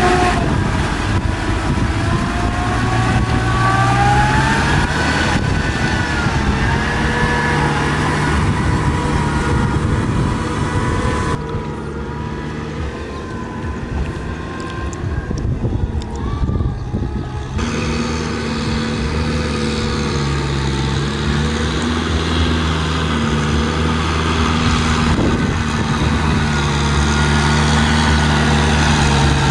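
Farm tractor's diesel engine running steadily as it pulls a rotary tiller through a flooded rice paddy, with a whine that rises and falls in the first few seconds. The sound grows fainter and duller for several seconds in the middle, then comes back as strong as before.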